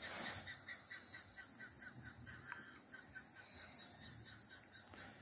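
Insects droning steadily at a high pitch, with a quick, regular chirping of about four to five notes a second.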